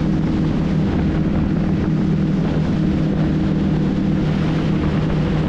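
Motorboat running at speed: a steady, even engine drone mixed with the rush of spray off the hull and wind.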